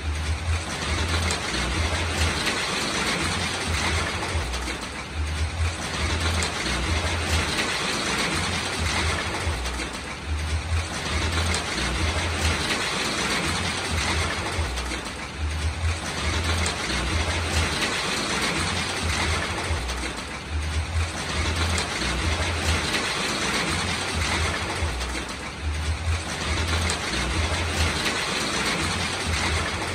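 Heavy rain falling as a steady hiss, with wind rumbling on the microphone; the hiss eases briefly about every five seconds.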